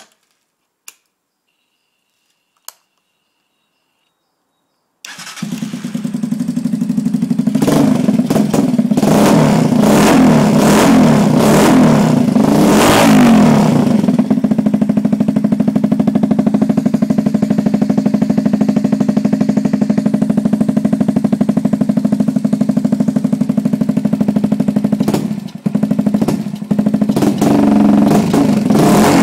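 Megelli 125 motard's single-cylinder engine starting about five seconds in, after a few faint clicks. It settles to an idle with several quick revs over the next few seconds, runs steadily, then is revved again near the end.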